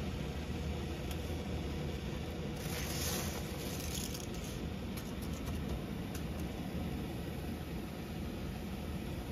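Large stainless pot of water at a rolling boil, a steady bubbling with a deep rumble. About three seconds in, a brief brighter hiss as a bundle of dry spaghetti goes into the water, with a few light ticks after.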